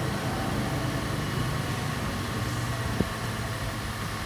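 The car's 2.3-litre turbo engine idling steadily, with a single sharp click about three seconds in.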